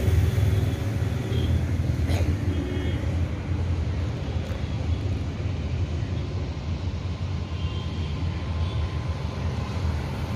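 Steady low rumble of roadside traffic, with a single sharp click about two seconds in.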